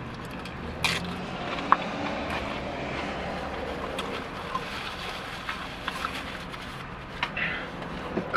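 Steady low hum of a car running, heard inside the cabin, with chewing and a few small clicks of food handling over it.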